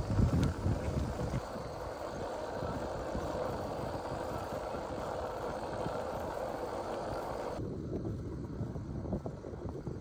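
Surly Long Haul Trucker touring bicycle rolling on asphalt: a steady hiss of tyre and road noise, with wind gusting on the microphone at the start. Most of the hiss drops away abruptly about three-quarters of the way through.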